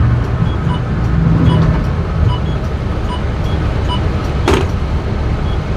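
Coach bus on the move downhill, heard from inside the cab: a steady low engine and road rumble, with a faint short beep recurring a little under once a second and a single sharp knock about four and a half seconds in.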